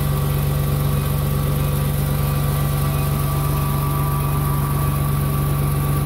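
Hyster forklift's propane (LPG) engine idling steadily, running good on a newly fitted fuel vaporizer that has cured its excessive-fuel no-start.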